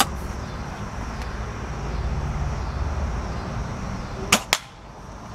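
Spring-powered airsoft bolt-action rifle firing a shot about four seconds in: two sharp snaps a quarter of a second apart, over a steady low rumble.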